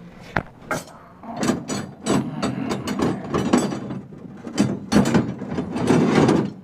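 Hand tools being handled in a toolbox: metal bars and sockets clanking, knocking and scraping against each other and the drawer, in a quick irregular clatter that grows busier after about a second and a half.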